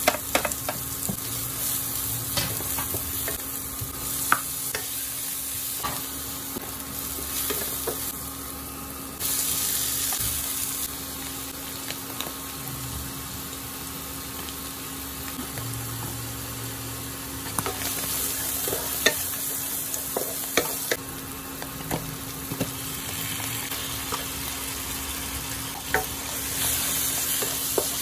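Garlic, onions, mushrooms and corned beef sizzling in a pan while a wooden spatula stirs and scrapes through them. Short sharp knocks of the utensils against the pan come throughout, and the sizzle swells now and then.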